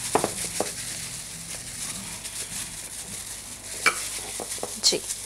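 Gloved hands rubbing an oily marinade into a whole fish in a glass baking dish: wet squishing and smearing, with a few short, sharper sounds near the start and again about four and five seconds in.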